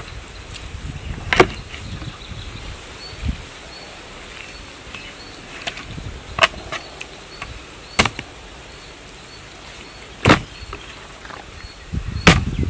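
About five sharp knocks and taps from a steel plate and raw pork being handled on a wooden table. Beneath them is a steady outdoor background with a faint, evenly repeating insect chirp.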